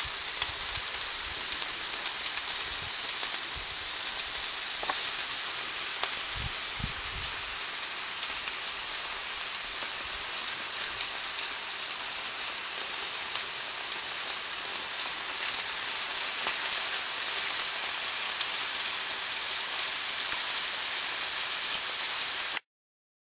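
Dry-aged T-bone steaks sizzling in perforated aluminium grill trays on a grill: a steady, dense hiss with fine crackle, cutting off suddenly near the end.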